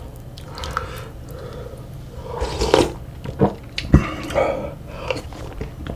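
A person eating close to the microphone: chewing, with a few sharp clicks and knocks, the loudest about four seconds in.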